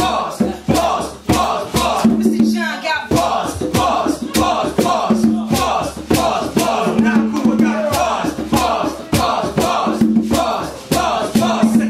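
Live hip hop band playing with a steady drum beat and a held bass line, with loud shouted vocals on microphone over it.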